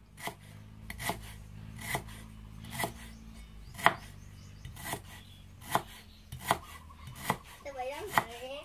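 Cleaver chopping on a round wooden chopping block in slow, single strokes: about ten chops, a little under one a second.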